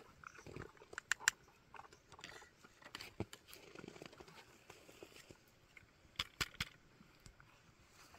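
Faint handling noises from loading a muzzleloading rifle: scattered light clicks and crunches, with a quick cluster of three clicks a little after six seconds.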